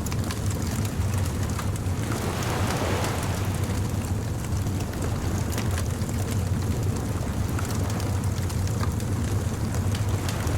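Beach bonfire ambience: a fire crackling with scattered small pops over a steady low rush of surf, the rush swelling briefly about two seconds in.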